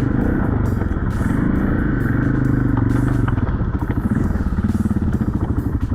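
Dirt bike engine of a Timbersled snow bike running under throttle while riding through snow, its pitch rising and falling. Over the last couple of seconds it drops to a slower, pulsing lower rev.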